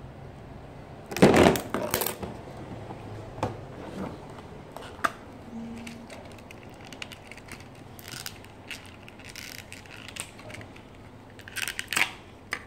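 A hard plastic Thomas & Friends playwheel case being handled and set down on a wooden table: a loud clatter about a second in, then scattered single clicks and faint rustling, and a few more knocks near the end.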